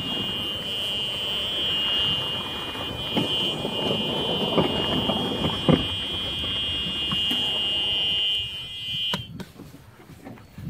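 Electric golf cart driving under power: a steady high-pitched whine from the 48-volt drive motor and its new motor controller, over rolling and rattling noise with a few knocks. The whine cuts off abruptly with a click about nine seconds in, leaving softer rolling and wind noise.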